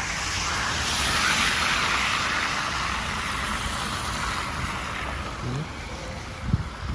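A vehicle passing on the street: a rush of tyre and engine noise that swells over the first two seconds and slowly fades, over a low rumble of wind on the microphone.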